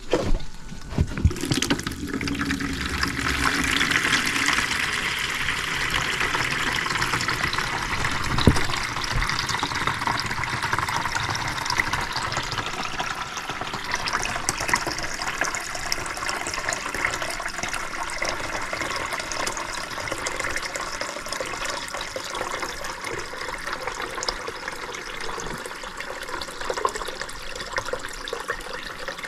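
Water from an air handler's overflowing condensate drain pan splashing and running steadily into a bucket as the pan is emptied, with a few knocks near the start and one sharp knock about eight seconds in.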